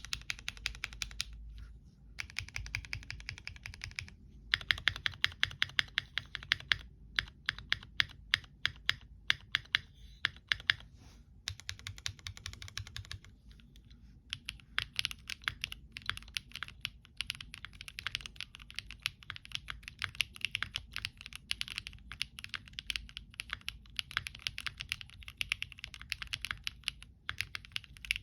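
Typing on a Monsgeek M1 mechanical keyboard with lubed and filmed Gateron Modern Grey switches and foam in the case and under the PCB: fast, even runs of keystrokes, broken by brief pauses a few times.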